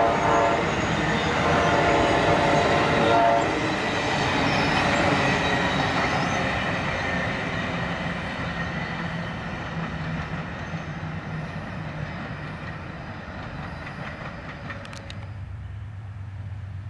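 Amtrak Silver Meteor passenger train passing, its locomotive horn sounding a chord twice in the first few seconds over the rumble and clatter of the passenger cars. The rumble fades steadily as the train moves away, and after an abrupt cut near the end a low steady hum takes over.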